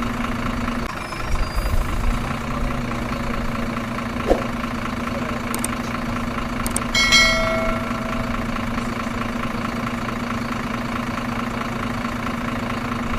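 Steady truck-engine idling hum, with a few thumps about a second and a half in and a short ringing ding about seven seconds in.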